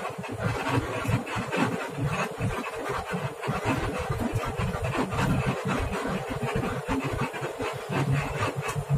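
Tour bus under way: steady engine and road noise with many small rattles and knocks throughout.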